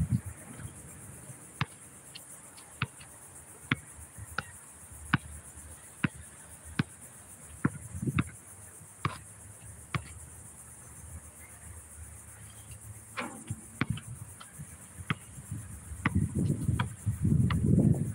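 Basketball bouncing on a concrete court, sharp single bounces about once a second, over a steady high insect drone. A low rumbling noise comes in near the end.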